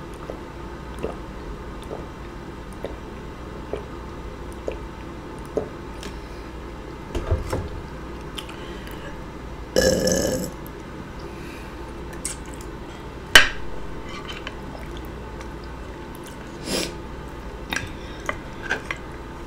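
A woman eating a mussel seafood boil: scattered small wet mouth and eating clicks, and one loud burp about ten seconds in that lasts under a second.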